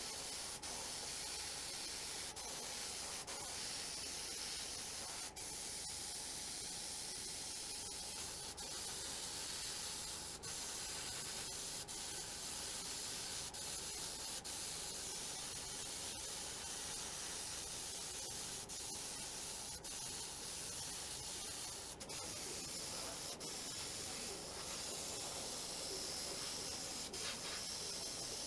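A steady spraying hiss that holds level throughout, with a few very brief breaks.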